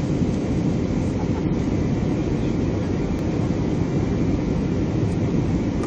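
Airbus A320 cabin noise in flight: a steady low rumble of engines and airflow that holds even throughout.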